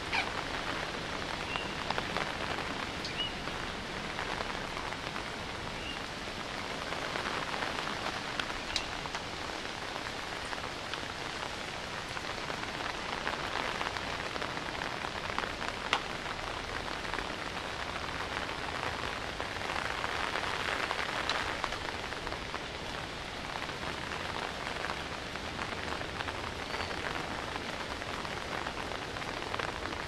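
Steady rain falling, an even hiss with scattered sharp drops ticking.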